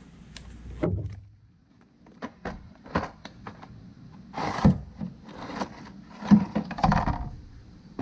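Clicks and plastic knocks of an electric chainsaw being handled, as its plastic bar cover is slid off the guide bar and set down on concrete, with a few louder thunks in the second half.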